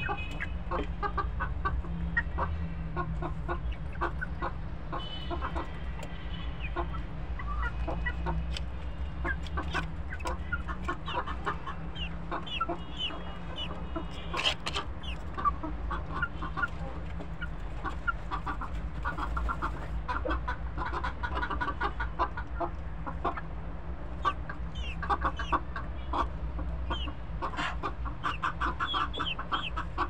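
A flock of chickens clucking continually while feeding, with higher short chirps and scattered sharp clicks, one louder than the rest about halfway through. A steady low rumble runs underneath.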